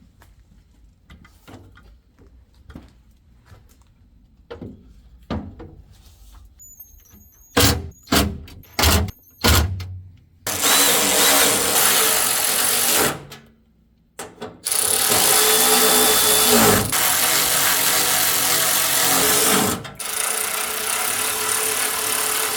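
Handheld power tool running, drill-like: some light clicking and handling first, then a few short trigger bursts, then three longer runs of several seconds each.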